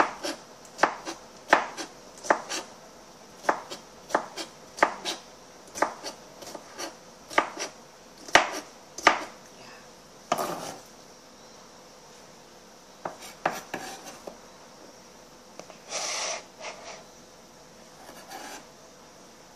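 Kitchen knife chopping cucumber on a plastic cutting board: a run of sharp knocks of the blade on the board, about two a second and often in pairs, which thins out about halfway. A few longer scraping sounds follow as the diced pieces are cleared from the board.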